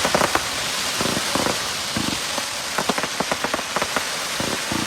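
Aerial firework crackle effects: a dense, continuous crackling of many small sharp pops from crackling crossette and crackle shells, sounding like heavy rain.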